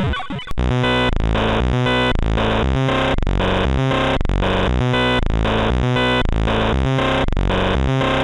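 Fan-made Emergency Alert System alarm: harsh, distorted synthesized tones. Sweeping tones give way about half a second in to a loud, repeating pattern of stepped electronic tones with short, hard breaks.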